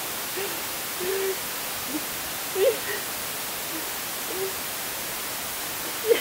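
Short, scattered bursts of stifled laughter from two young men, over a steady background hiss.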